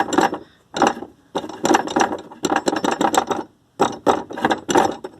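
Car accelerator pedal assembly worked up and down, a loose part of its linkage rattling and scraping in a run of sharp, irregular clacks. The noise comes from a missing bushing, which leaves the part loose and scraping against the metal.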